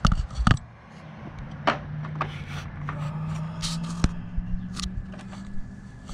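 Hand tools and bolts clicking, tapping and scraping against a motorcycle's metal fender-eliminator bracket, with a couple of heavy thumps near the start. A steady low hum runs beneath from about a second and a half in.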